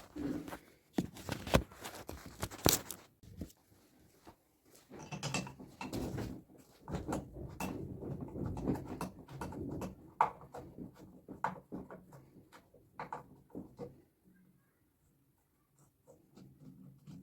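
Hands-on work on a washing machine during a bearing change: a run of sharp knocks and clicks of tools and parts being handled, with scraping and rustling about five to ten seconds in.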